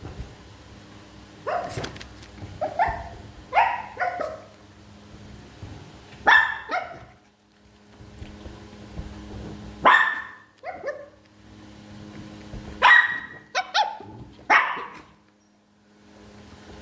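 Small Shih Tzu-type dogs barking in short, sharp yaps, in clusters of one to three barks a few seconds apart.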